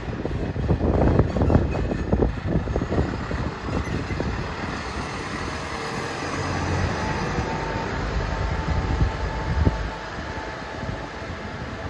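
Road vehicles running, a dense low rumble of engines and traffic, with irregular knocks during the first few seconds.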